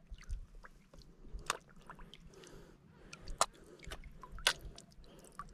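Quiet splashing and dripping of seawater with scattered sharp clicks, from a hooked fish at the surface being lifted out of the water beside the boat.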